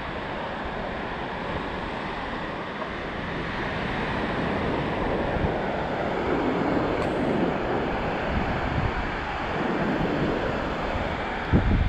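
Ocean surf washing on the beach, with wind blowing on the microphone. A loud low buffet comes just before the end.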